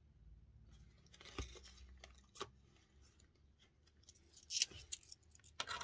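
Clear plastic zipper pouch of a budget binder rustling and crinkling as money is put into it, with a couple of soft clicks and louder crinkling near the end.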